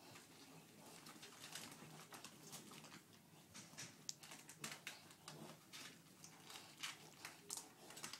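Faint, irregular scratching and rustling: six-week-old kittens clambering over a fabric backpack, their claws catching the cloth in many small scratchy clicks.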